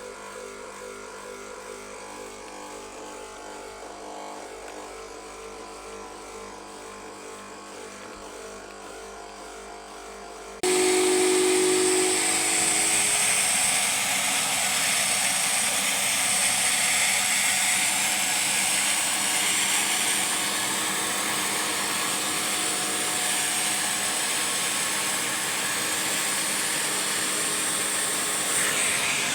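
A washing vacuum cleaner running steadily, a loud whooshing hiss of suction. For the first ten seconds there is only a quieter steady hum, then the loud suction noise cuts in abruptly and holds.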